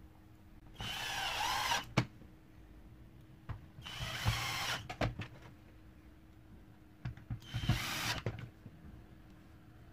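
Electric screwdriver driving screws into the plastic housing of a vacuum cleaner's floor head: three separate runs of about a second each, with a sharp click right after the first.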